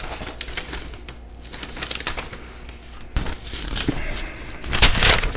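Paper rustling and crinkling as a letter is drawn from a mailed envelope and opened out, in irregular rustles with a louder burst near the end.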